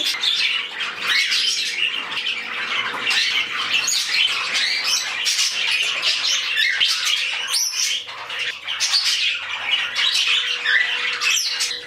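A flock of budgerigars chattering and warbling, many birds calling over one another without a break.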